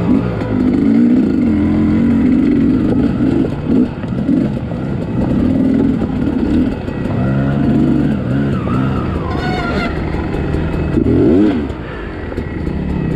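Two-stroke engine of a 2023 Sherco 250 SE Factory dirt bike, picked up on the rider's helmet camera, revving up and down as the bike climbs over rock ledges at low speed. A sharp rising rev comes about eleven seconds in.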